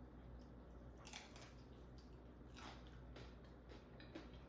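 Faint crunching and chewing of a bite of a crispy air-fried egg roll wrap filled with Sloppy Joe, with a few sharper crackles scattered through.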